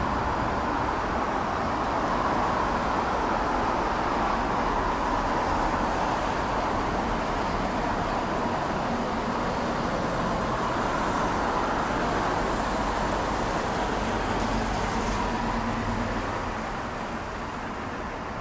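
Steady distant engine noise, swelling gently and easing off near the end, with a faint run of quick high ticks about eight seconds in.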